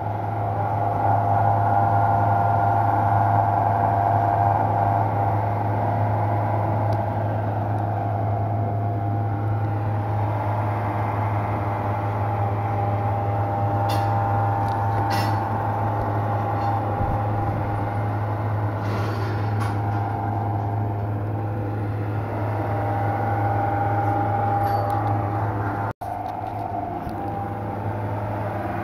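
Steady hum of tyre-shop machinery: a constant low drone with a wavering higher hum over it, and a few faint clicks near the middle.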